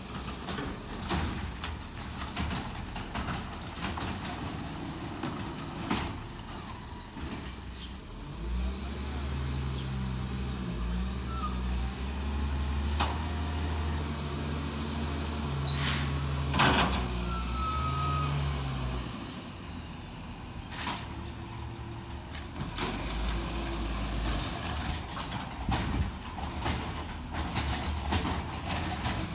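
Crane Carrier LET garbage truck working down the street: its engine revs up and holds a steady drone for about ten seconds in the middle, then drops back, with scattered knocks and clanks throughout and one loud bang just before the revs fall.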